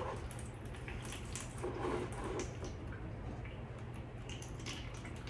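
Water poured slowly from a plastic gallon jug onto a freshly potted plant, trickling and dripping into the saucer beneath as the potting medium is soaked.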